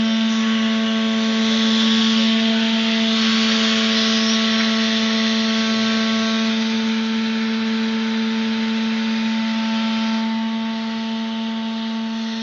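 Hydraulic power unit of a valve test rig running steadily: a constant hum with a higher whine, under a hiss that swells and fades.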